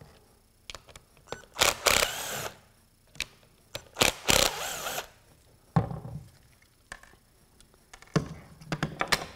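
Cordless drill-driver running in two short bursts, about two and four seconds in, backing the last screws out of a plastic impact-wrench housing. Then clicks and knocks as the loosened parts and screws are handled on a wooden bench.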